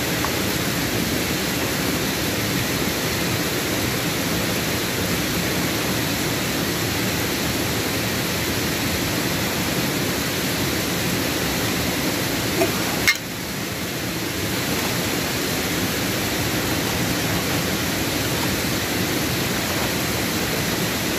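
Waterfall rushing steadily, dipping briefly about two-thirds of the way through.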